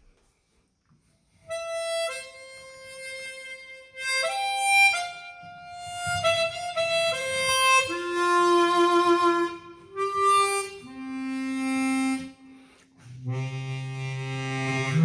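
Easttop EAP Performer 16-hole chromatic harmonica played through an SM58 microphone. After a brief quiet start it plays a line of single notes that works downward into the low register, with one note wavering in a vibrato around the middle and low, fuller notes near the end. The harp is airtightened and has its stock covers on.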